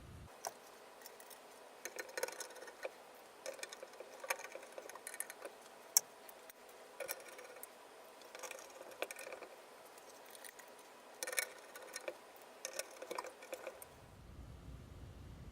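Small hard parts of a ceiling fan being handled and fitted by hand: irregular clicks, clinks and little rattles coming in short clusters every second or two.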